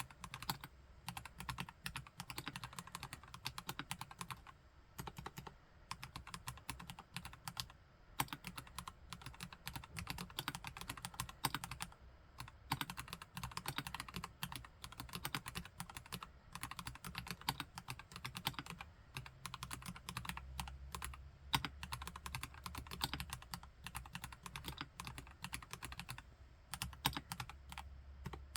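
Fast, continuous typing on a KLC Nori Spring Rider plastic-case mechanical keyboard with Gateron Yellow Pro V2 linear switches: a dense stream of keystroke clacks with a few brief pauses.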